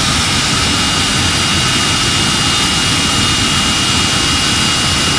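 Jet engine on a show fire truck running steadily, a loud even rush with a high, steady turbine whine, its flame jet off.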